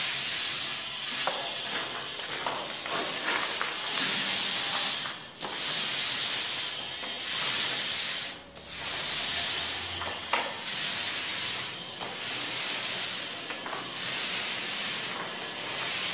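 Paint roller on an extension pole rolling emulsion paint over a wall in repeated long strokes, a sticky swishing hiss that swells and fades with each stroke about every one and a half to two seconds. These are the light back-rolling passes that even out the roller stipple on the finishing coat.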